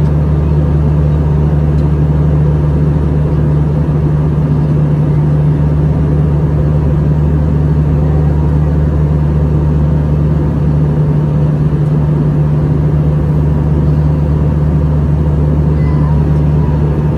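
Airbus A321 cabin noise in flight, heard at a window seat beside the CFM56 turbofan engine: a steady low engine drone over the rush of airflow past the fuselage.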